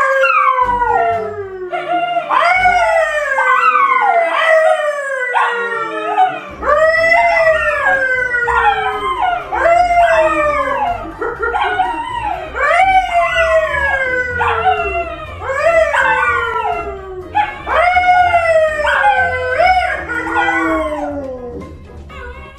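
A brown poodle and a yellow Labrador howling along with a man who howls with them. The voices overlap in repeated long howls that each fall in pitch.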